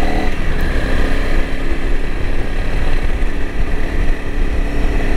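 Honda CRF300L Rally's single-cylinder engine running at a steady pace while riding, with wind rumbling on the microphone.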